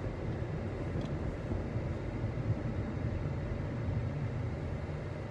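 Steady low road and engine rumble inside the cabin of a Jeep being driven.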